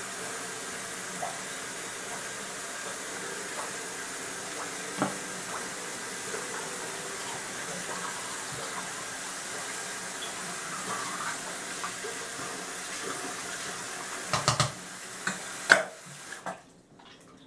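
Bathroom sink tap running steadily into the basin, with small scattered clicks over it. Near the end come a few sharp knocks, then the running water stops.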